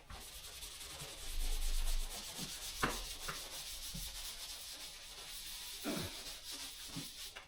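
Damp rag rubbed over a sanded plaster patch on plasterboard, a steady rubbing hiss, wiping the surface to show up divots that still need filling. A couple of light knocks come about three and six seconds in.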